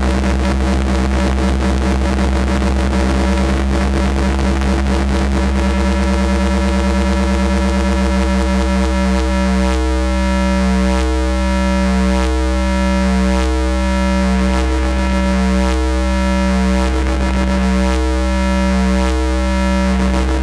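Astrogorus synthesizer playing a noisy drone over a steady deep low hum. About halfway through, the dense noise thins into a repeating pulse of pitched tones, roughly one a second.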